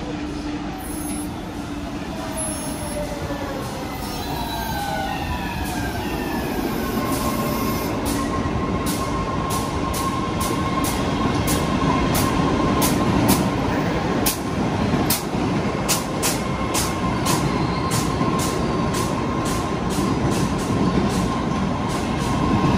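MBTA Red Line subway train of 01800-series cars pulling into the station and slowing along the platform, growing louder as it nears. Its motors whine in rising tones at first, then a steady high tone sets in about seven seconds in, along with regular clicks of the wheels passing over rail joints.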